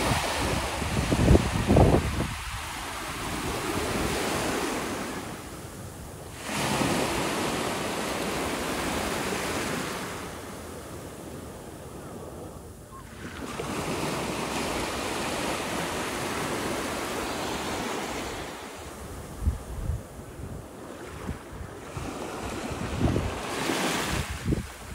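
Small sea waves washing at the shore, a steady hiss that swells and fades every few seconds, with wind buffeting the microphone in low rumbling gusts about a second in and again near the end.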